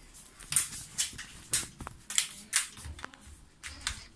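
Quick footsteps on a hard floor, a sharp tap about every half second.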